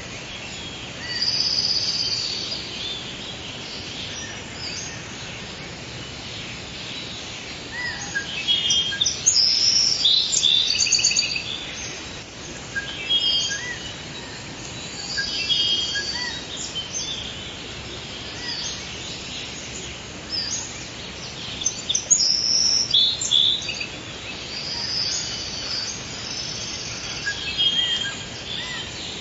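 Forest ambience of several songbirds chirping and singing in bursts, with a softer chirp repeating every couple of seconds, over a steady background hiss.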